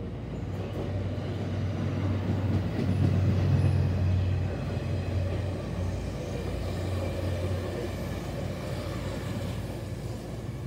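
E491 series electric track-inspection train, with a Maya 50 clearance-measurement car in its consist, running past on the rails. Loudest about three to four seconds in, then fading as the last car goes by.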